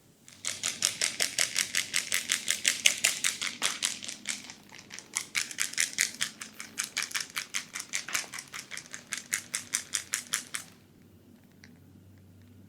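Fast, even hand tapping on the head during a massage, about six to seven strikes a second, with a short break near the middle. The tapping stops about two seconds before the end.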